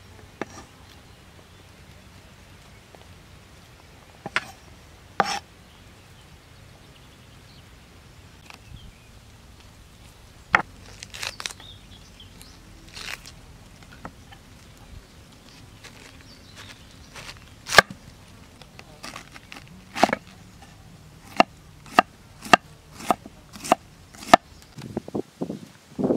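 Knife chopping on a cutting board: a few scattered strikes at first, then a steadier run of chops, about two a second, in the last several seconds.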